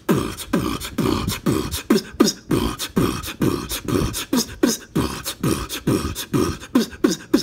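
A steady beat of deep thumps, each falling in pitch, about three a second, with a hiss between the strokes: a beatbox-style rhythm driving the chant.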